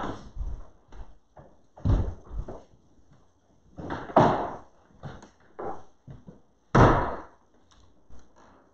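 Several separate wooden knocks and thumps in a reverberant room, the loudest about seven seconds in: pews and chairs as the congregation stands up.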